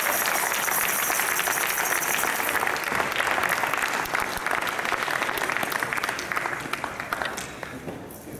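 Audience applauding, a dense spread of clapping that thins and dies away near the end.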